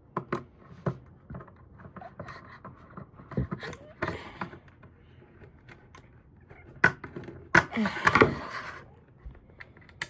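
Plastic power strip casing being handled and screwed back together: scattered clicks, knocks and short scrapes of plastic and screws, with a few louder knocks about two thirds of the way in.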